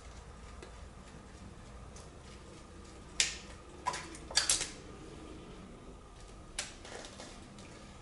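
Sharp clicks and taps from parts being worked by hand on a Suzuki TS185ER motorcycle's engine: four about three to five seconds in and one more a little later, over a low steady hum.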